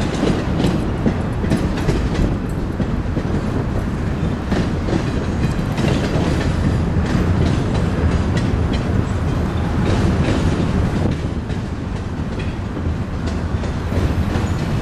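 A train rolling along the track, its wheels clicking over the rail joints over a continuous low rumble.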